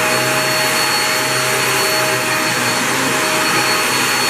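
Hoover React Professional Pet vacuum cleaner running steadily, its motor hum carrying a constant whine.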